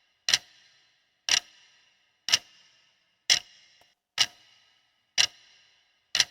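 Quiz countdown timer: a clock-tick sound effect ticking steadily about once a second. Each tick is a sharp click with a short ringing tail.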